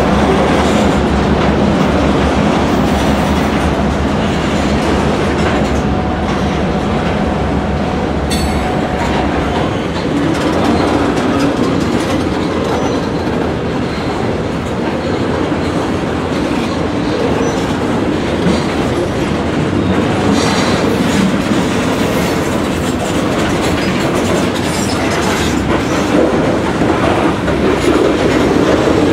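Loaded freight cars, covered hoppers and tank cars, rolling past close by on steel wheels, with a steady rumble and the wheels clacking over the rail joints. A faint thin wheel squeal sounds through roughly the first third.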